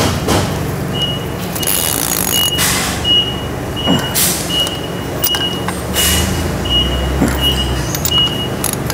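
A wrench tightening nuts on a mud-motor housing, with a few sharp metal clicks. Through most of it a high electronic beep repeats about one and a half times a second.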